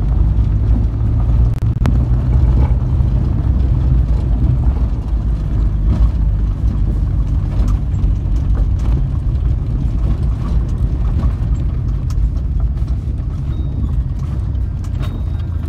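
Vehicle driving along a dirt road: a steady low engine and tyre rumble with scattered knocks and rattles from the rough surface.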